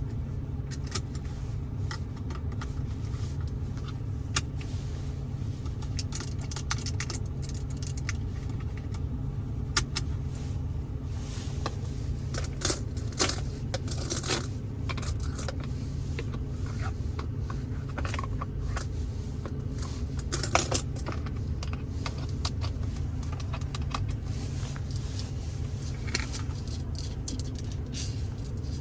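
ASMR tapping and handling of small hard objects inside a Ford Focus cabin: irregular clicks, taps and metallic clinks, thickest around the middle with a sharp cluster about two-thirds through, over a steady low rumble.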